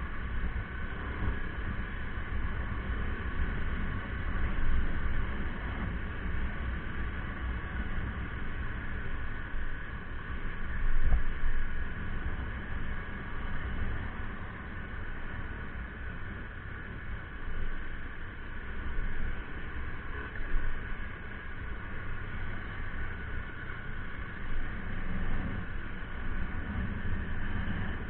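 Steady outdoor background rumble, rising and falling in the low end, with faint steady tones higher up and a single knock about eleven seconds in.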